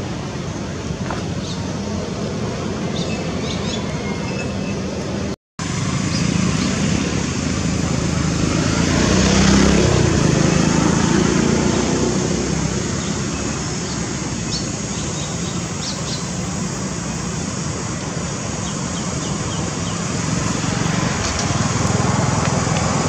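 Steady outdoor background rumble like distant road traffic, swelling for a few seconds in the middle. The sound cuts out for an instant about five seconds in.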